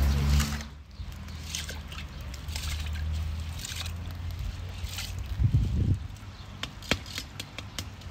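Rice in cold water, the water sloshing and trickling, with a few light clicks near the end.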